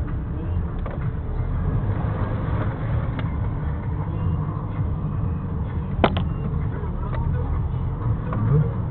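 Low rumble of a car driving slowly over a rough dirt track, heard from inside the car, with a sharp knock about six seconds in.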